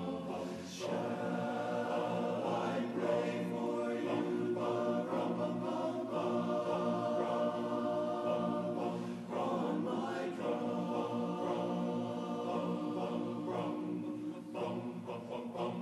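Men's barbershop chorus singing a cappella in close harmony, holding full sustained chords that change every second or so.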